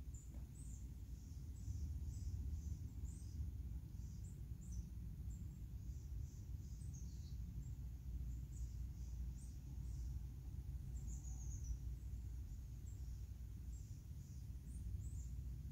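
Small birds chirping in short, high notes scattered throughout, over a steady low rumble.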